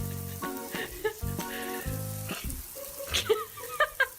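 Background music with a steady hiss under it, and a few short chirps near the end.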